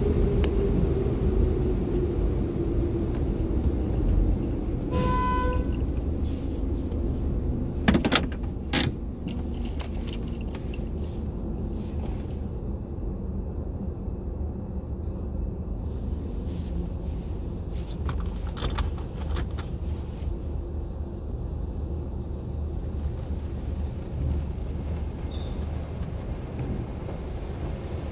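Automated car wash machinery running, heard from inside the car: a steady low rumble, with a whine falling in pitch over the first few seconds. A short beep comes about five seconds in, and sharp knocks at about eight and nine seconds and again around nineteen seconds.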